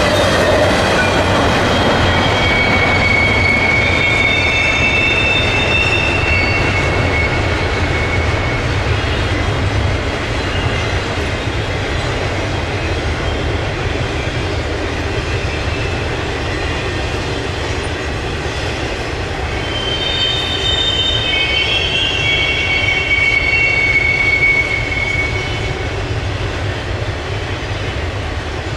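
Double-stack intermodal freight train of well cars rolling past: a steady rumble of wheels on rail, with high, thin wheel squeals a few seconds in and again about twenty seconds in.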